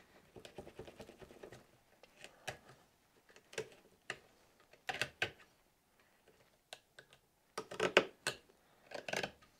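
Straight-bladed bench knife cutting and paring into cottonwood bark: a series of short cuts and scrapes at irregular intervals, the loudest cluster about eight seconds in. The knife has lost some of its edge.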